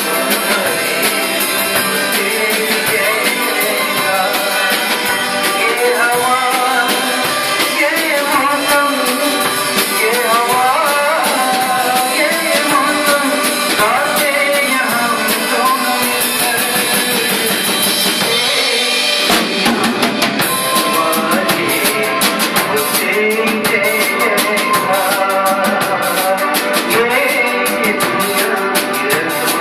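Live band music with a drum kit keeping a steady beat under a melody line. About two-thirds of the way through there is a brief drop, after which the cymbal strikes come thicker and faster.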